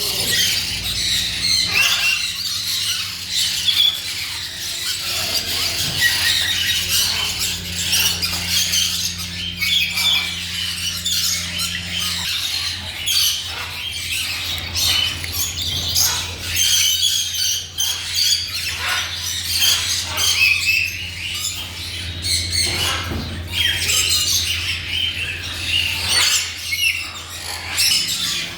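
A flock of birds chirping and squawking at once, a dense unbroken chatter of short high calls, over a steady low hum.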